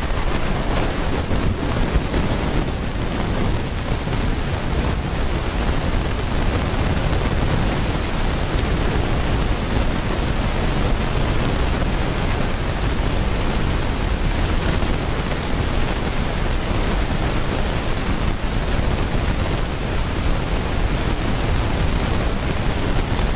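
Sustained applause from a large audience: a dense, steady clatter of clapping that keeps an even level throughout.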